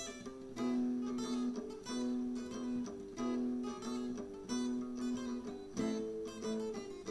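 Guitar music: chords strummed in a steady repeating rhythm, each one left to ring.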